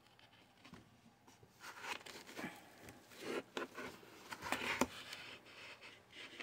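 Faint, irregular rustling and scraping as thin twine is wrapped and pulled tight around a foam pool noodle tied to a wooden chair leg, the rubbing thickest near the middle.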